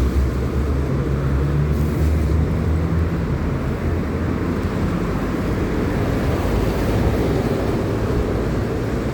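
Steady wind rumble on the microphone and road noise while riding in traffic, with a low hum over the first three seconds.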